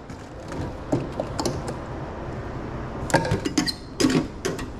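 A metal spoon clinks and scrapes against the stainless-steel pans and lids of a hot dog steam table while chili is ladled onto a hot dog. There are a few light knocks about a second in, then a quicker run of sharp clinks and clatter in the second half.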